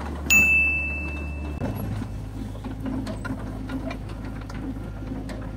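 A short bell-like chime rings once near the start, holding one steady high note for about a second, over the steady low running of a CAT 307C excavator's diesel engine; the engine sound changes abruptly about a second and a half in.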